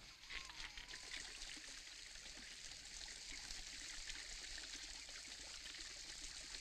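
Water trickling and splashing steadily from the spout of a small stone fountain.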